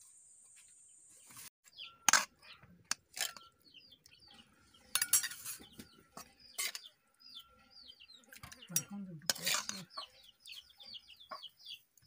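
A steel spoon scraping and clinking against an aluminium kadai and small steel bowls as fish curry is dished out, with several sharp clinks, the loudest about two seconds in. Birds chirp behind it throughout.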